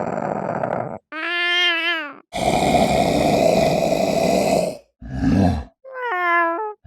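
A series of separate cat calls with short silences between them: a harsh growl that stops about a second in, a short pitched wavering yowl, a long harsh snarling growl of about two and a half seconds, then two short calls near the end, the last a pitched yowl that falls in pitch.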